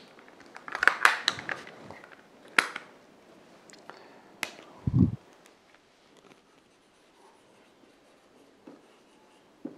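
Sharp clicks of a whiteboard marker being handled and uncapped, with a short low thump about five seconds in, then faint squeaky scratching of the marker writing on the whiteboard.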